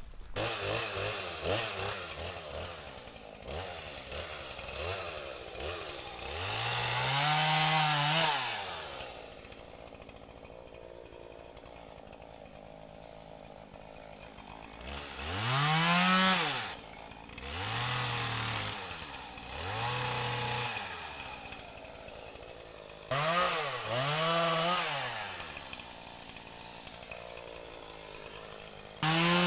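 Two-stroke chainsaw revved up in several short bursts, its pitch climbing and falling back each time, dropping to a low idle between bursts as it cuts and stops.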